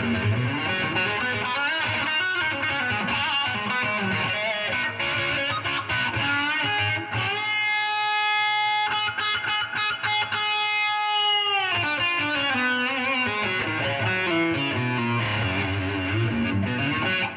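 Electric guitar played through an amplifier with a rewound vintage humbucker pickup in the bridge position: picked lead lines, with a held note ringing for about four seconds midway. This is a playing test of the rebuilt pickup, now fitted with an alnico 2 magnet.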